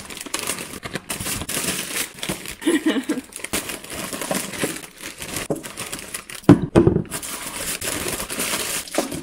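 Plastic carrier bag and foil snack packets rustling and crinkling as they are unpacked by hand, with one louder bump about two-thirds of the way through.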